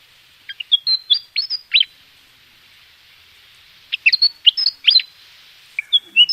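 A songbird singing: quick runs of sharp chirps and whistles sweeping up and down in pitch, in two bursts a couple of seconds apart, with more starting near the end, over a steady faint hiss.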